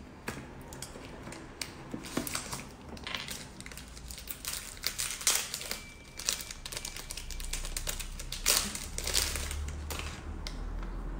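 Plastic wrappers crinkling and crackling as individually wrapped chocolate cakes are lifted out of their box and opened: an irregular run of crackles with louder bursts about four to six seconds in and again around eight to nine seconds.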